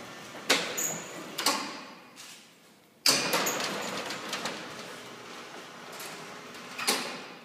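Electric roller shutter door running: a couple of knocks, then about three seconds in the motor starts suddenly and the steel slats rattle as the shutter moves, fading slowly, with another sharp knock near the end. It is the door starting up after being left to rest, the condition under which it had been failing to move.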